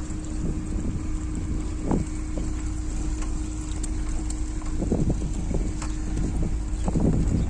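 Horse-drawn carriage on the move: a low rumble of wheels with wind on the microphone, and a few scattered hoof clops.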